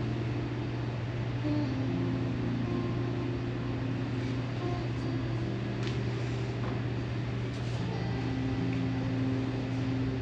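Soft, slow background music of long held tones that shift every second or two, over a steady low hum.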